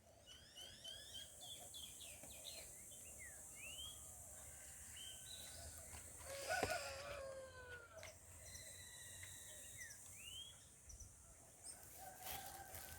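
Several birds chirping and calling with short rising and falling notes, over a steady high hiss. A louder, lower call with a falling tail comes about six and a half seconds in.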